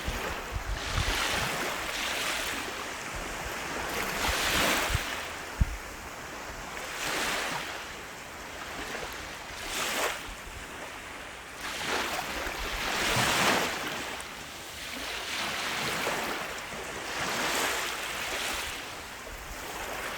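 Ocean waves breaking and washing up a beach, the surf swelling and falling back every two to three seconds, with a low rumble underneath.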